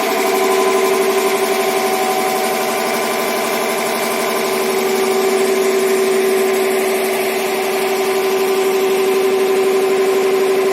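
Electric motor of workshop equipment running steadily under power, giving a constant hum with a strong, even pitch.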